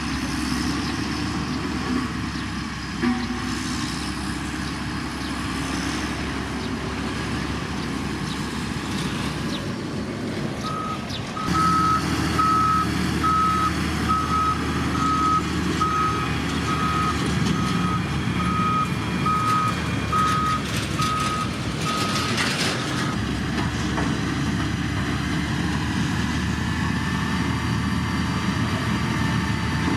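Heavy road-construction machinery with its engine running steadily. About a third of the way in, a reversing alarm starts beeping, roughly once a second for about eleven seconds, as a machine backs up, and then it stops.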